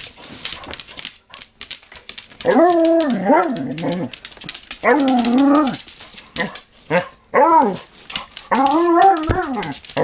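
A dog giving a run of drawn-out, wavering bark-howls, each about a second long, with two shorter ones in the middle, while pawing and lunging at the phone. Sharp clicks and scratches of paws and handling of the phone go on between the calls.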